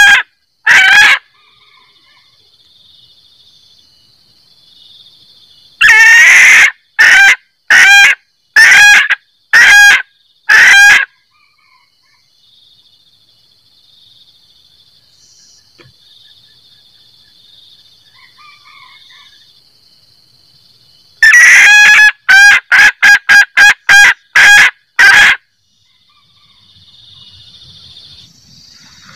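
Female junglefowl cackling ('kekkek' calls), the call a hen uses to draw a male: a pair of calls at the very start, a run of about six a fifth of the way in, and a quicker run of about ten in the last third. Between the runs only a faint steady high insect buzz is heard.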